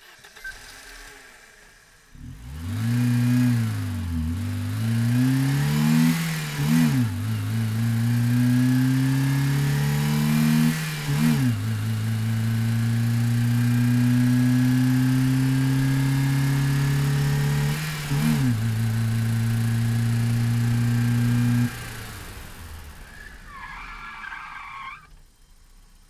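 Audi A3 engine starting, then revved several times, the pitch rising and falling with quick throttle blips. It then holds a long steady run at raised revs, its pitch slowly climbing for about ten seconds before it drops away. A brief higher-pitched sound comes near the end.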